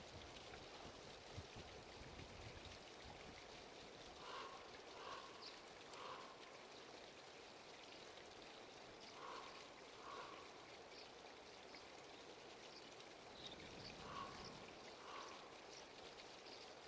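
Near silence: faint, steady outdoor background hiss, with a few soft, short sounds in pairs about 4, 9 and 14 seconds in.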